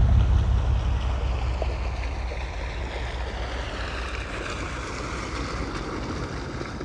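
Wind buffeting the microphone with a low rumble that dies away over the first two seconds, over a steady rush of flowing river water.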